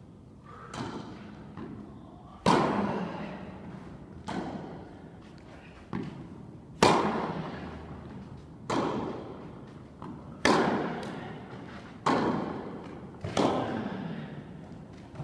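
Tennis rally on an indoor court: a string of sharp racket hits and ball bounces, roughly one every one to two seconds, some much louder than others, each ringing on in the long echo of the hall.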